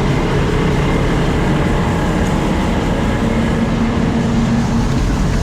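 Heavy farm machinery running steadily, a loud low rumble. A steady hum joins in about three seconds in.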